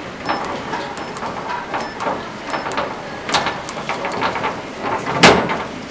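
Buttons of a push-button combination lock on a locker clicking one after another as a code is keyed in, followed by a louder clunk near the end as the lock's knob is turned to release the latch.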